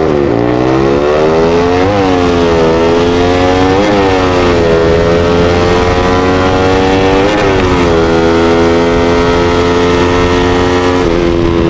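Yamaha Vixion motorcycle engine, bored up to 200 cc, accelerating hard through the gears. The pitch climbs and drops back at each upshift, about every two seconds at first, then one longer pull before it holds at a steady high speed over the last few seconds.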